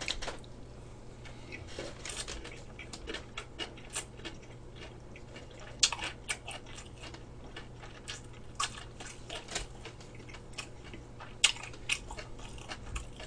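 A person chewing a mouthful of gimbap close to the microphone: many small, irregular wet mouth clicks and smacks, a few louder about six seconds in and near the end.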